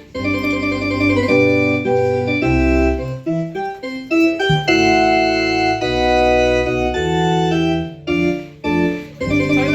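Live band music: sustained chords over low bass notes, changing every second or so and breaking off briefly several times.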